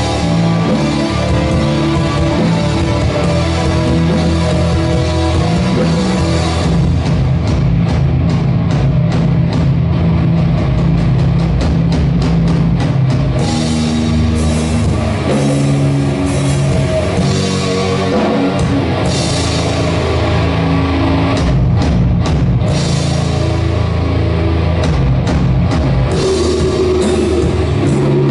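Doom metal band playing live: distorted guitars, bass and keyboards holding heavy chords over a slow drum beat. The drums and cymbals come in strongly about six seconds in.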